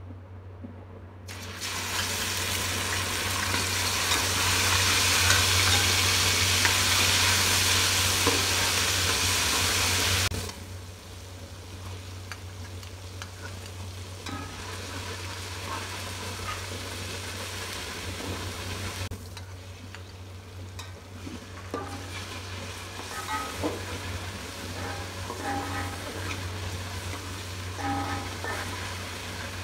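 Onions, then tomatoes, frying in hot oil in an aluminium pot. A loud sizzle starts about a second in and cuts off suddenly about ten seconds in. After that comes a quieter frying sizzle with the clinks and scrapes of a metal spatula stirring the pot.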